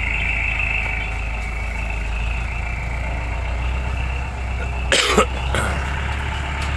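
Truck engine running with a steady low rumble as it pulls up close, with a brief loud burst of noise about five seconds in.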